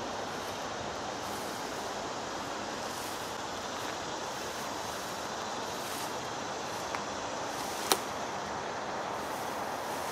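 Steady rush of distant road traffic, with a single sharp click about eight seconds in.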